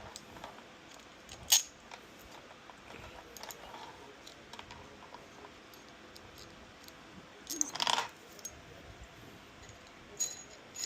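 Small metal hardware and tools clicking and clinking while a screen swivel mount is being fitted by hand: one sharp click about a second and a half in, a short cluster of clinks near eight seconds, and faint scattered ticks between.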